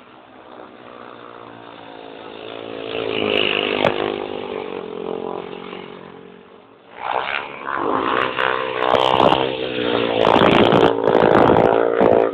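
Racing motorcycle engines revving up and down as the bikes lap the track: one pass swells and fades around four seconds in, then a louder, closer pass runs from about seven seconds in until just before the end. Heard through a mobile phone's microphone, with the top end cut off.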